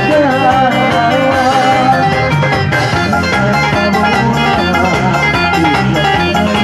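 A band playing live Bajau dance music, with plucked guitar over a steady beat.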